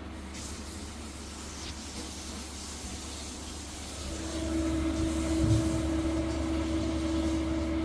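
Fisher & Paykel refrigerator running with a steady low hum. About four seconds in, a louder steady humming tone joins it, as a motor in the fridge comes up to speed.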